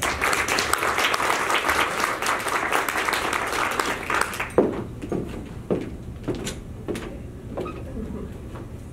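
Audience applauding: dense clapping that dies down about four and a half seconds in, followed by a few scattered sharp knocks.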